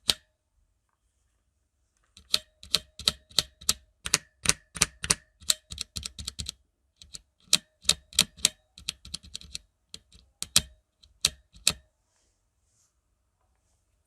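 Mechanical keyboard with tactile brown switches being pressed key by key, a run of sharp clacks about three to four a second that starts about two seconds in and stops a couple of seconds before the end. Many strokes carry a short faint ring after the clack.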